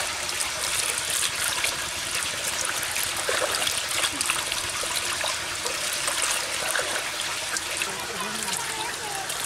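Water pouring steadily from a plastic-lined outlet in a mud bank into a woven bamboo basket fish trap, splashing down onto the caught fish.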